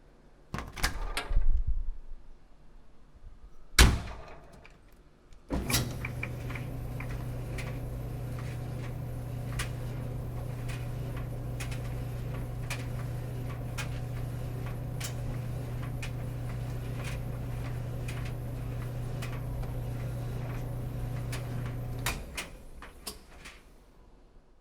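Clothes dryer: its door is handled and shut with a sharp knock about four seconds in. Then the machine starts and runs with a steady low hum and scattered light ticks, and stops about 22 seconds in.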